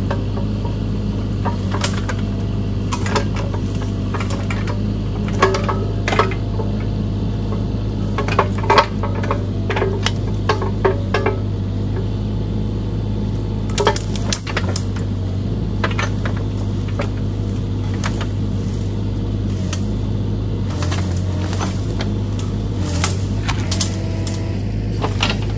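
Mini excavator's diesel engine running steadily, with irregular sharp metal clanks and knocks from the working machine.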